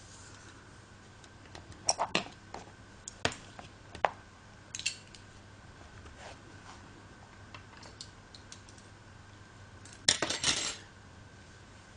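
Light clicks and taps of hands handling a hardback notebook and crochet work on a tabletop, scattered through the first five seconds, with a louder run of clatter about ten seconds in.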